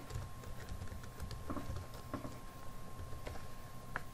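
Computer keyboard typing: scattered light keystrokes, with a sharper key click near the end. A faint steady high hum runs underneath.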